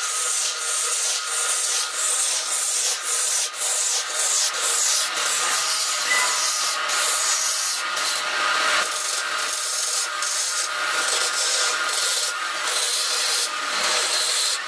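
A wood lathe running with a hand-held turning chisel cutting into the end of a spinning wooden workpiece: a steady scraping hiss of the tool on the wood, broken by short dips as the cut eases, over a faint hum of the lathe.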